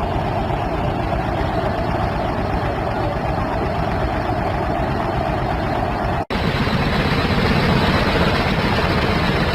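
Steady rumble of an airliner cabin in flight, recorded aboard a plane that passengers said had suffered an engine seizure. The sound cuts out for an instant about six seconds in, then resumes as a similar, slightly louder rumble.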